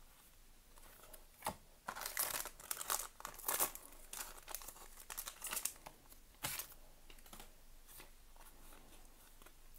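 Hands handling and flipping through a freshly opened pack of Pokémon trading cards: crinkly rustling with sharp snaps and clicks, densest from about two to four seconds in.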